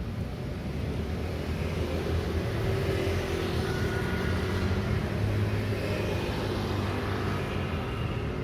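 Busy city street traffic: vehicle engines and tyres running continuously, swelling a few seconds in as vehicles pass close, then easing slightly.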